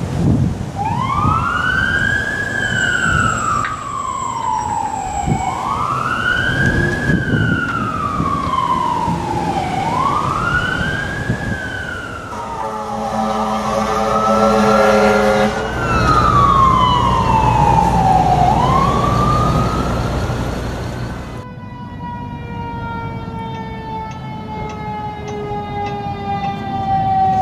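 Fire truck sirens wailing, each cycle rising quickly and falling slowly, about every three and a half seconds, over truck engine and road noise. About halfway through comes a blast of a multi-tone air horn. Near the end a single siren tone slides slowly down in pitch.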